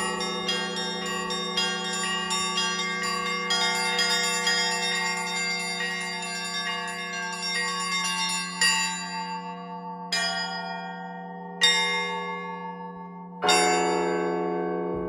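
Russian Orthodox church bells ringing: a fast run of strokes on several bells over a steady low hum. About eight seconds in the quick run stops, and single strokes follow about every one and a half to two seconds, each left to ring on.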